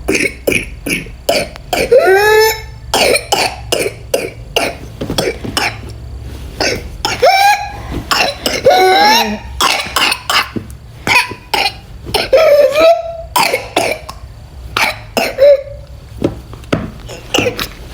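A child with whooping cough (pertussis) in coughing fits: rapid strings of short, sharp coughs. Several times a run breaks off into a drawn-out, rising, pitched gasp for breath, the whoop of pertussis.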